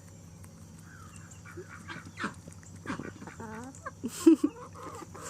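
Chickens, ducks and turkeys calling in short, scattered cries as they squabble over a tomato, with one loud call about four seconds in.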